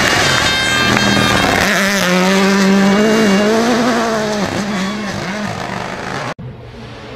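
Toyota GR Yaris Rally1 rally car at full throttle on a gravel stage, its engine pitch climbing and dropping several times as it passes. The sound cuts off abruptly about six seconds in, giving way to a quieter passage.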